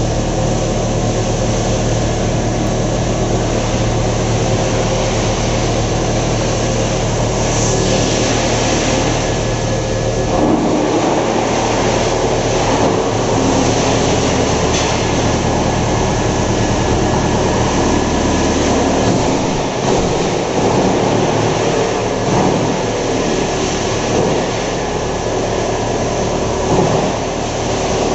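Large 220 kW wood chipper running continuously at a steady hum; about ten seconds in its sound turns rougher and noisier, with the low steady tone giving way to a dense rumble.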